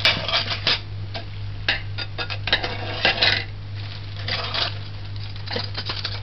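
A utensil stirring liquid in an aluminium pot, clinking and scraping against the pot's sides in irregular clusters, over a steady low hum.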